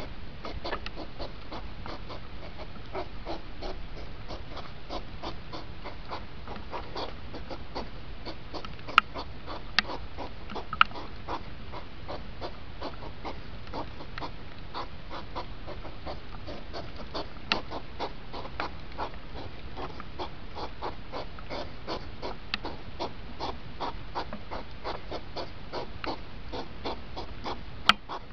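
Hedgehogs huffing in a courtship rut, sped up into a fast, unbroken chatter of short puffs. A few sharp clicks stand out about nine to eleven seconds in and again near the end.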